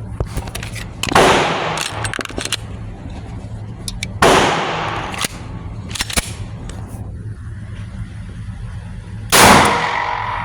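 Three loud gunshots, about three and five seconds apart, each trailing off in a short echo. Fainter sharp cracks of other shots sound between them.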